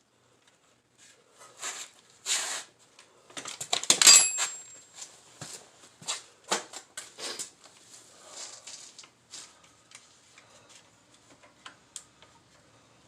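Metal parts and hand tools clicking and clattering irregularly while a motorcycle rear axle assembly is clamped and fitted, with one louder metallic clank that rings briefly about four seconds in.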